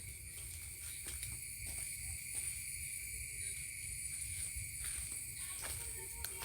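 Steady shrill insect chorus, several high tones held together without a break, over a low rumble.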